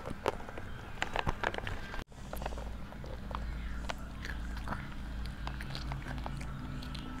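A toddler chewing a crunchy snack close to a clip-on microphone: a quick run of sharp crunches and clicks. It breaks off abruptly about two seconds in, after which sparser crunches sit over a low steady hum.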